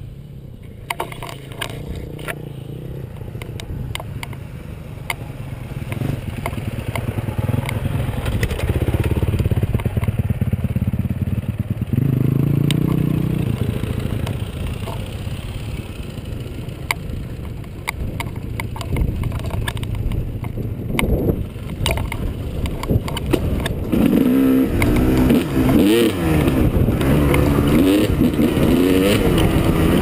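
Dirt bike engine running while riding a rough dirt trail. Its pitch rises and falls with the throttle, most strongly in the last few seconds, over rattles and knocks from the bike on the bumpy ground.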